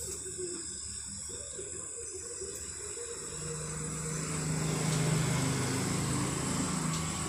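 Engine hum of a passing motor vehicle, swelling from about three seconds in, loudest in the middle and fading near the end.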